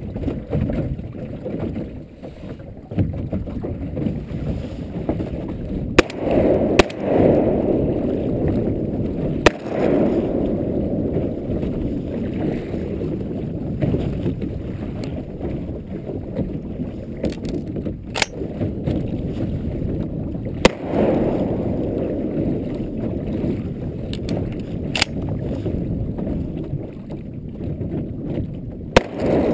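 Choppy water sloshing and slapping against the hull of a low-floating layout boat, in uneven surges every few seconds, with wind buffeting the microphone. A few brief sharp knocks.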